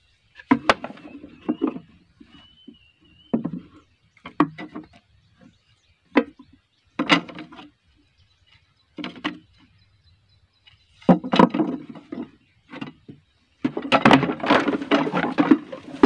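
Wooden beehive box being taken apart by hand: a string of separate knocks and clunks of wood on wood as the lid, top bars and box are lifted and set down, ending in a longer run of rattling clatter.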